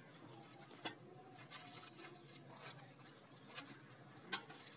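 Faint crinkling of a thin plastic sheet pressed and smoothed by hand inside an aluminium pot, with a few light taps, the loudest near the end.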